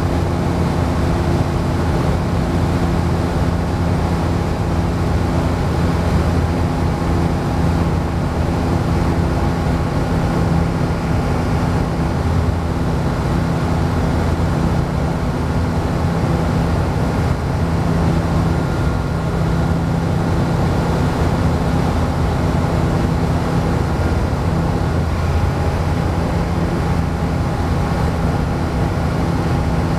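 Ikarus C42 ultralight aircraft in flight: its engine and propeller droning steadily, heard from inside the cockpit.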